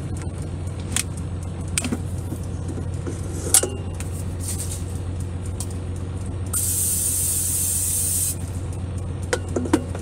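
Cooking-oil spray hissing in one long squirt of nearly two seconds, about two-thirds of the way in, as oil is sprayed into the air fryer basket. Under it runs the steady low hum of the truck's engine, idling after an automatic remote start, with a few light knocks and clicks from handling things in the cab.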